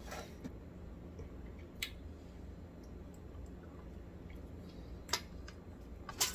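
A person eating quietly: a few sharp, separate clicks of a metal fork against a plate while taking a bite, over a low steady hum.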